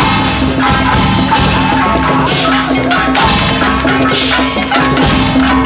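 Music with drums and percussion: strong hits about once a second over a steady low held note, with a wavering melody line above.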